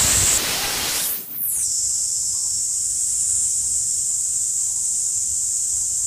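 Steady high-pitched insect chorus with no words over it. It opens with a rush of hiss that sweeps down in pitch and cuts out about a second and a half in.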